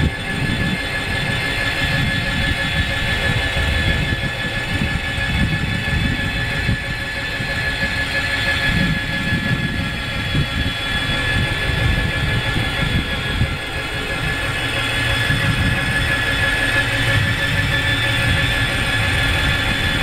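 Electric seat lift's motor running with a steady whine as it slowly raises a seated rider, over an uneven low rumble.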